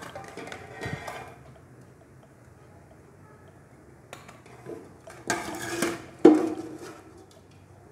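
Cooked rice being scooped between steel cooking pots: a utensil scraping and knocking against the metal pots, with a louder clatter near the end that peaks in one sharp, ringing clank.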